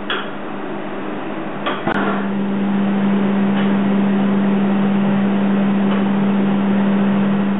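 Handheld gas torch burning with a steady rushing flame while it heats a bronze casting for a hot patina. A couple of short knocks come near the start, and a steady low hum sets in about two seconds in.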